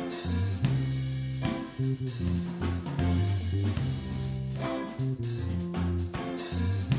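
Background music: guitar over a bass line and drums, with a steady beat.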